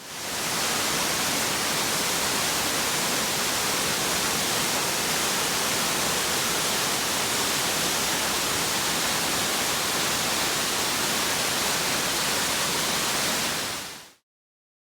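Steady rush of falling water from a waterfall, faded in at the start and faded out near the end.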